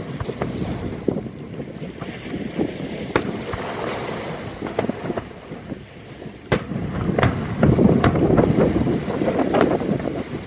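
Aerial fireworks bursting: sharp bangs about every second, the loudest about six and a half seconds in, followed by a couple of seconds of dense crackling.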